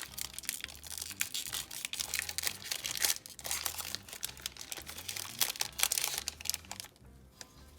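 Crinkly plastic wrapper of a football trading-card pack being torn open and crumpled, a dense crackling that dies down about seven seconds in.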